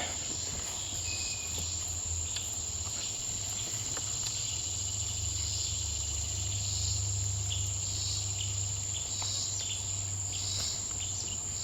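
Insect chorus: the steady high trill of Say's trigs runs throughout. A swamp cicada's pulsing buzz repeats about once a second through the second half, over a low steady hum.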